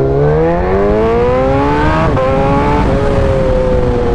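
Sportbike engine accelerating, the revs climbing steadily, with gear changes about two seconds in and just before three seconds, after which the revs ease off slowly.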